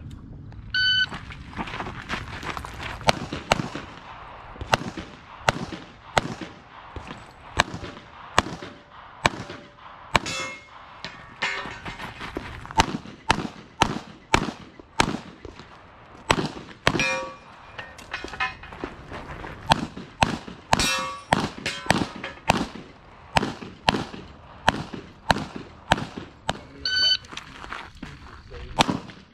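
A shot-timer start beep about a second in, then rapid pistol fire from a CZ TSO competition pistol, mostly in quick pairs, with steel targets ringing out after hits at a few points. Another timer beep sounds near the end.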